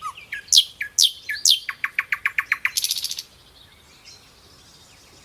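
A songbird calling: a few sharp whistled notes that sweep steeply down in pitch, then a quick run of about seven notes a second, ending in a short buzzy trill about three seconds in. After that only faint evening background remains.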